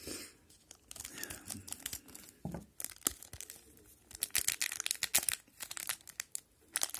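Wrapper of an O-Pee-Chee hockey card pack being torn open and crinkled by hand: irregular crackling and rustling, denser in two spells in the middle.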